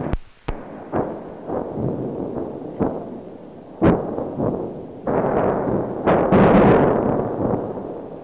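A series of explosions at uneven intervals: several short, sharp bangs, then two heavier, longer rumbling blasts about five and six seconds in.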